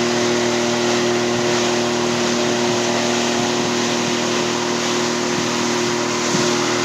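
Motorboat engine running steadily under way, a constant hum over an even rushing noise.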